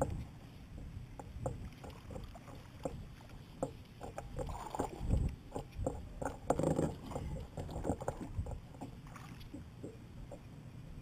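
Irregular light knocks and bumps on a Kaku Wahoo sit-on-top kayak as the angler shifts his weight, sits down and handles his fishing rod, with a busier cluster of knocks about halfway through.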